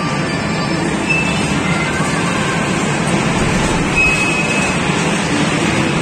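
Small amusement-park ride train running along its track: a steady rumble, with a short high squeal about a second in and again about four seconds in.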